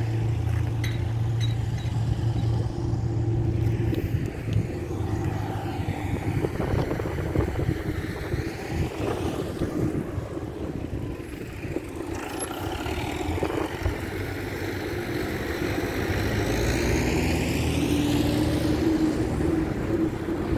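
Motor vehicles passing on a nearby road: a steady low engine hum that fades after about four seconds, then two slow passes, the second with an engine note rising near the end.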